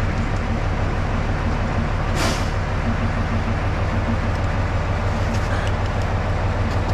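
Diesel engine of a TU7A narrow-gauge locomotive idling with a steady low, evenly pulsing rumble. About two seconds in, a short hiss of released air cuts across it.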